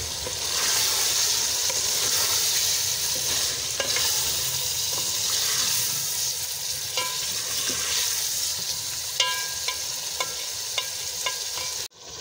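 Meat, tomatoes and green chillies sizzling in hot oil in a metal pot while a spoon stirs them, with scattered scrapes and short metallic clinks against the pot. The sizzle drops out abruptly near the end and comes back quieter.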